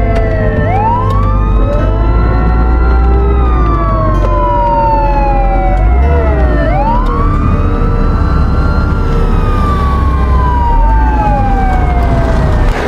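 Ambulance siren sounding a slow wail: it rises quickly, then falls slowly over about five seconds, and does this twice, over a steady low rumble.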